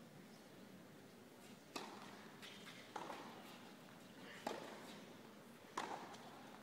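Tennis ball struck back and forth with rackets in a rally, four sharp hits about a second and a half apart, echoing in an indoor arena.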